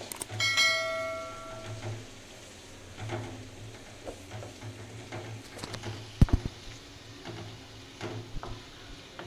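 A bell-like chime sound effect rings for about a second and a half near the start. After it a wooden spatula scrapes and taps against a metal kadai as chopped onions are stirred in hot oil, with one sharper knock about six seconds in.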